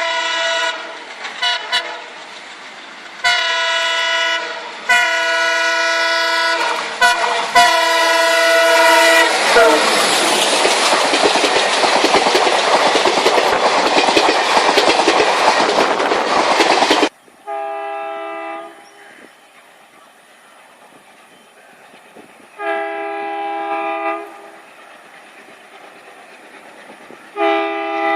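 Indian Railways locomotive horn sounding a series of blasts one to two seconds long. In the middle, about seven seconds of loud rushing rail noise from a passing train cut off suddenly. Three more horn blasts follow, a few seconds apart.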